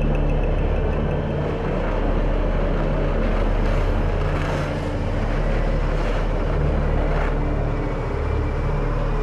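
Heavy vehicle engine running steadily with a low drone and a rumbling noise, no sudden impact.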